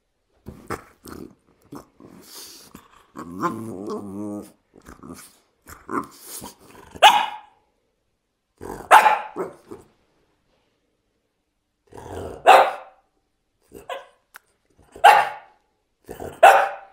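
French bulldog 'talking': short soft vocal sounds and a longer, wavering pitched call in the first few seconds, then loud single barks every two to three seconds.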